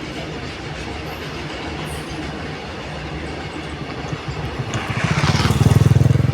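A train crossing a railway bridge, heard from underneath: a steady rumble of wheels on the rails and bridge deck that grows much louder near the end.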